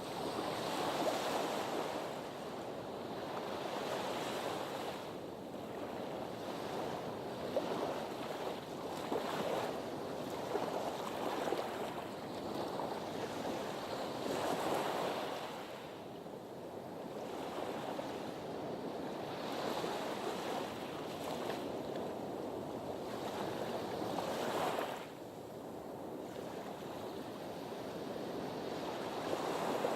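Sea surf washing against a harbour breakwater, a continuous wash of waves that swells and ebbs every couple of seconds.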